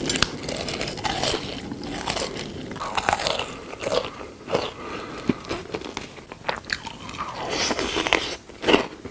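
A person biting and chewing crunchy food, with irregular crunches and crackles several times a second.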